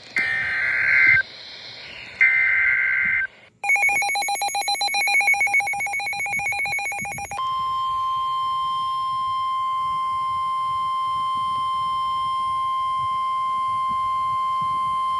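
Two short bursts of warbling two-tone digital data, the SAME alert header of a NOAA Weather Radio broadcast, then a rapid pulsing buzz of about four seconds. Then the steady 1050 Hz NOAA Weather Radio warning alarm tone, held for about nine seconds, announcing a severe thunderstorm warning.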